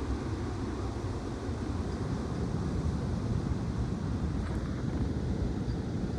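Strong gusty wind blowing and buffeting the microphone, a steady low rumbling rush that swells and eases.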